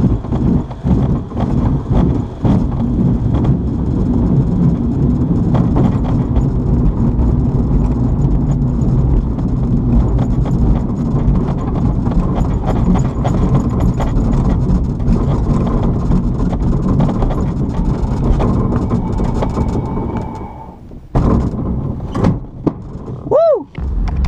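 Grob Twin Astir glider's main wheel rolling over a grass runway, a loud rumble with many small knocks and rattles through the fuselage and canopy, which dies away near the end as the glider comes to a stop. Then a sharp whoosh and a brief swooping tone of an edited transition.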